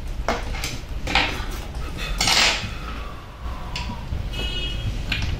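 Metal clicks and clatter of a phone motherboard being set and clamped in a metal PCB holder fixture: a handful of sharp knocks with one longer scrape about two seconds in, over a low steady hum.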